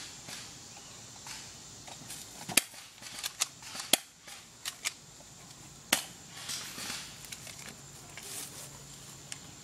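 Airsoft pistol firing a string of single shots, each a sharp snap. There are about eight, spaced unevenly and coming mostly in the middle few seconds.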